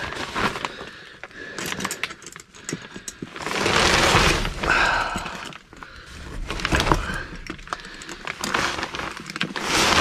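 Plastic vapor-barrier sheeting crinkling and rustling as a person crawls over it, with scattered clicks, louder about four seconds in and again near the end.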